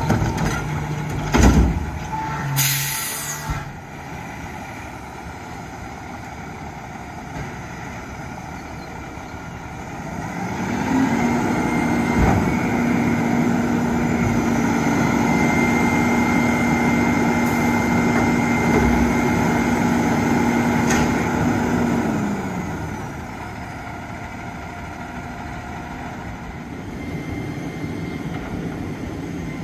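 Front-loader garbage truck with a Curotto-Can arm: knocks and a short hiss of air brakes about three seconds in, then the engine rises to a steady raised speed with a whine for about ten seconds, typical of running the hydraulics, before dropping back to idle.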